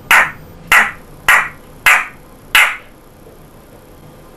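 African grey parrot giving five short, harsh calls in an even series about every 0.6 seconds, stopping about three seconds in.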